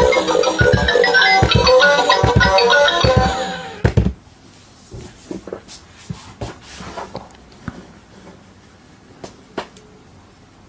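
Bright background music with a steady beat and melody that fades out about four seconds in, followed by faint scattered clicks and taps.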